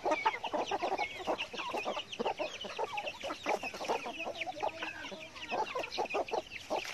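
A flock of hens clucking, with their chicks peeping in a busy stream of short high calls.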